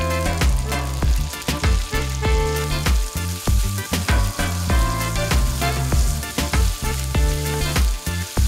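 Chopped tomatoes sizzling in hot oil in a frying pan as a wooden spatula stirs them. Background music with a steady beat plays throughout.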